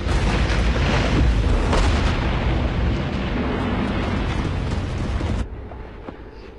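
Loud battle noise of explosions with a tank rumbling through it, dense and heavy in the low end, cutting off suddenly about a second before the end to a much quieter background.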